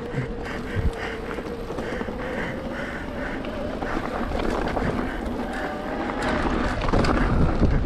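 Mountain bike riding on a dirt and gravel trail: tyres rolling over loose ground and wind rumbling on the camera microphone, with a steady buzz from the bike. It grows louder near the end.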